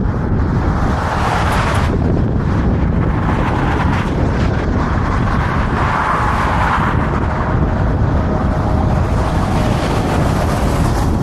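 Wind buffeting the microphone: a loud, steady rumble with no breaks.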